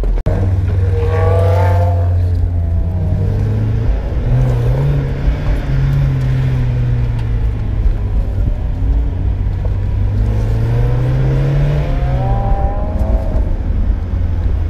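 Mazda Miata's four-cylinder engine, heard from inside the cabin, accelerating hard on an autocross course. The revs climb early on, step up around four seconds in and hold, then climb again and drop back about twelve seconds in.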